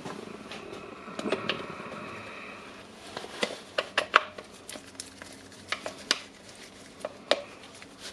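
Motor armature of a Makita rotary hammer being fitted into the greased gear housing and turned to bring the gears into mesh. A short scraping whirr, then a run of sharp metallic clicks and taps as the parts seat.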